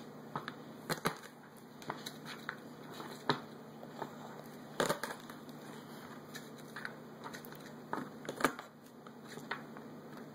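Garlic cloves cracking and popping as they are pressed flat under the side of a kitchen knife, a series of irregular crisp cracks, the loudest about five seconds in and again around eight seconds in.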